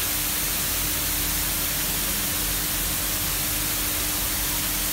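Steady hiss of a fountain's misting nozzles spraying a fine drizzle of water into the basin, with a faint steady hum underneath.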